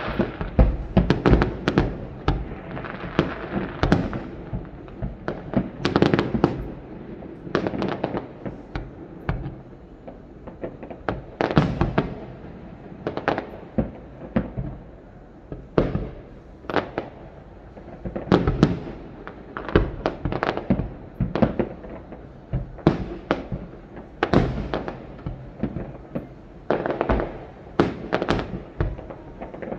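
A fireworks display: aerial shells bursting one after another in an irregular run of sharp bangs, often several in quick succession, with a low rumble between them.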